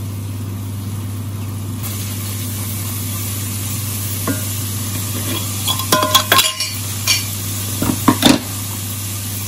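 Ground shallot, garlic and galangal paste sizzling in oil in an enamelled cast-iron pan as a silicone spatula stirs and scrapes it. A few sharp knocks and clinks come about six and eight seconds in.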